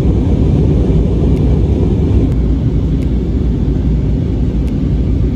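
Steady low rumble of engine and airflow noise inside an Airbus A320neo's passenger cabin during descent, with a few faint ticks.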